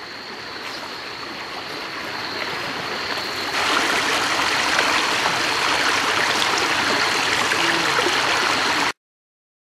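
Creek water flowing, a steady rushing noise that grows louder and steps up about three and a half seconds in, then cuts off abruptly near the end. A thin, steady high tone runs underneath.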